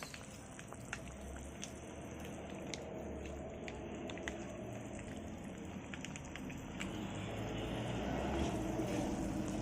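Chicken afritada's tomato sauce simmering in the pan, thickened with ketchup: a steady bubbling hiss with a few light clicks, slowly getting louder.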